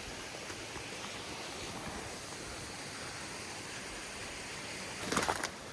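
Steady rushing outdoor background noise in the forest. A brief crunching rustle comes near the end.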